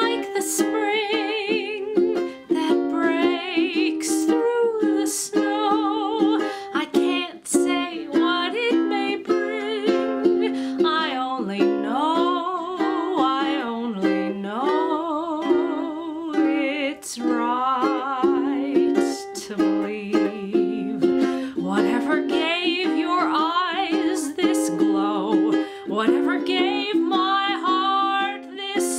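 A woman singing a slow ballad with vibrato, accompanying herself on a strummed Aloha ukulele.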